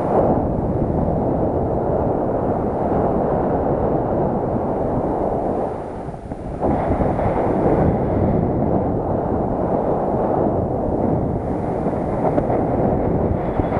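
Airflow buffeting the microphone of a camera on a flying paraglider: a steady, loud wind rush that briefly eases about six seconds in.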